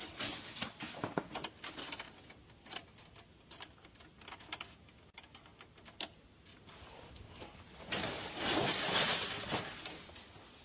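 Scattered clicks and knocks of a walk-behind lawn mower being handled and moved, then a louder noisy rush lasting about two seconds, starting about eight seconds in.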